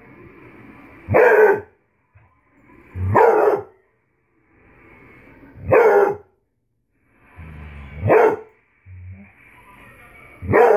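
Beagle barking at a toy figure: five loud barks, about two to two and a half seconds apart.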